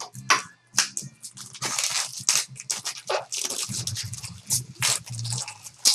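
Packaging being handled and torn open: dense, irregular crinkling and crackling of plastic wrapper or foil as a box of trading cards is unwrapped.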